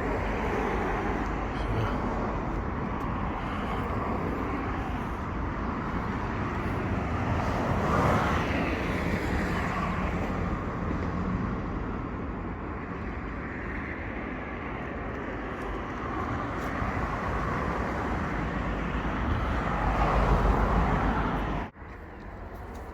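Steady road traffic noise, swelling as vehicles pass about a third of the way in and again near the end, then dropping suddenly.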